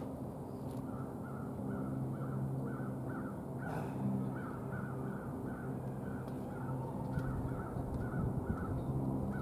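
A bird calling over and over in a regular series of short calls, about two a second, starting about a second and a half in, over a steady low hum.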